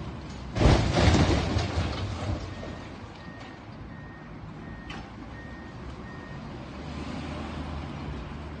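Brick and concrete debris crashing down as a high-reach demolition excavator pulls at the top of a multi-storey building, over the steady running of the machine's diesel engine. From about two and a half seconds in, a reversing alarm beeps repeatedly for a few seconds.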